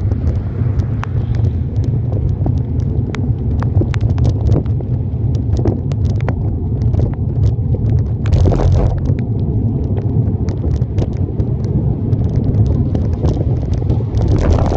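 Wind rumbling on the phone's microphone while riding a bicycle, with frequent sharp ticks and a louder rush about eight seconds in.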